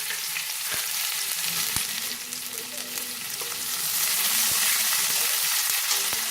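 Chopped onion sizzling steadily as it fries in hot mustard oil with whole cumin seeds. The sizzle is louder for a while in the middle, and there are a few sharp knocks against the pan.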